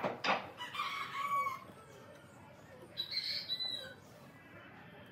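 Two knocks at the start, then a bird calling twice: a pitched call held for about a second, and a shorter, higher one about three seconds in.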